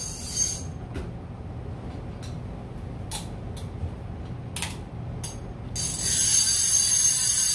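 Bait clicker of a conventional big-game fishing reel ratcheting in a steady high buzz as the spool turns. It stops just under a second in, a few separate clicks and knocks follow as the reels are handled, and the buzz starts again about six seconds in. The clicker is being checked for loudness and pitch: a loud clicker is wanted, and the two reels' clickers differ in pitch.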